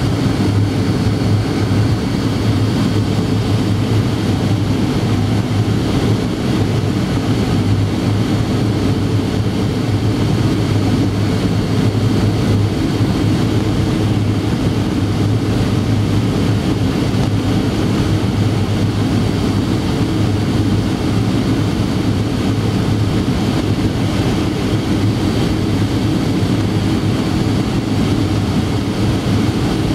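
Steady cabin noise of a Boeing 737-800 descending on approach, heard from a window seat over the wing: the CFM56-7B jet engines running and air rushing past the fuselage as a constant low hum and rush.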